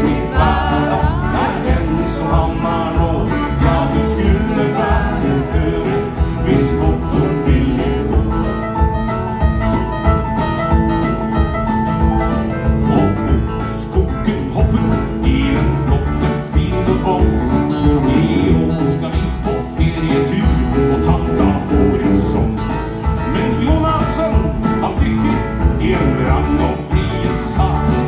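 Live band playing a country-style song: acoustic and electric guitars, bass, drums and keyboard, with a male voice singing.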